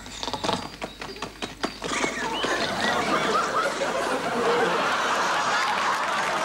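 Studio audience laughing and clapping, building about two seconds in to steady laughter and applause.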